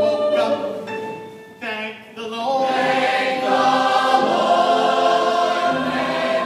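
A solo singer's phrases, then from about two and a half seconds in a full chorus of stage-musical voices comes in singing with the accompaniment.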